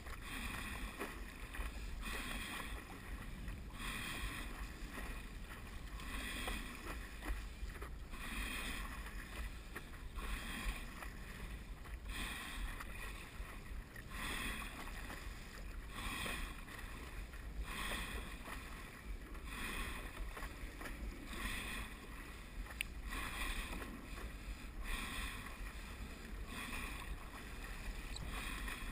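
Stand-up paddleboard being paddled: water splashes and rushes with each paddle stroke and at the board's nose, about once a second, over a steady low wind rumble on the microphone.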